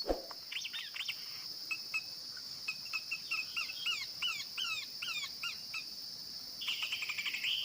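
A pelanduk semak, a babbler locally called cingduit, singing a run of quick down-slurred whistled notes, about two a second, over a steady high insect drone. A harsher chattering burst follows near the end, and there is a short knock at the very start.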